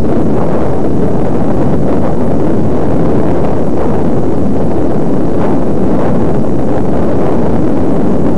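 Loud, steady wind buffeting and rumble on a moving camera's microphone, a dense low noise that stays at the same level throughout.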